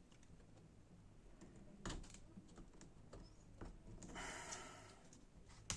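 Faint scattered clicks and taps of hands working on a laptop, with a short scraping rasp a little after four seconds in and a sharp click near the end, as hot melt glue is picked off the keyboard assembly.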